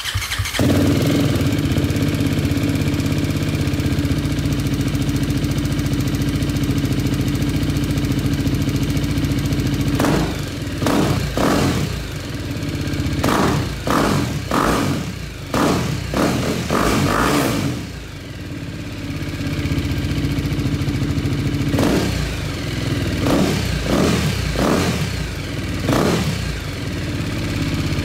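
BMW G310R's single-cylinder engine running through an Akrapovic Racing Line carbon slip-on exhaust. It idles steadily for about ten seconds, then the throttle is blipped several times in quick succession, and again a few times near the end.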